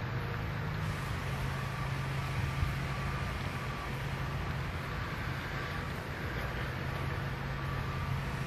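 Steady outdoor background noise with a low, even hum of distant machinery or traffic.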